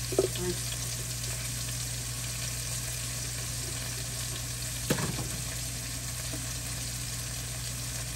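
Onions and green peppers sizzling steadily as they sauté in a stainless steel pot, over a steady low hum. A single sharp knock sounds about five seconds in.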